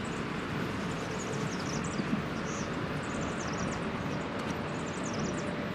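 Outdoor ambience: a steady background rumble, like distant traffic, with small birds chirping high above it.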